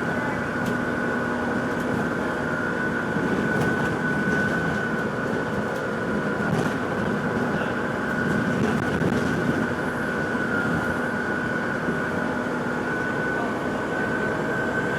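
A steady high-pitched whine that wavers slightly in pitch, over the steady rumble of a moving vehicle.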